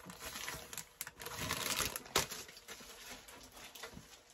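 Butter sizzling and crackling under a quesadilla in a frying pan, a fine steady crackle of small pops, with one sharper click a little over two seconds in.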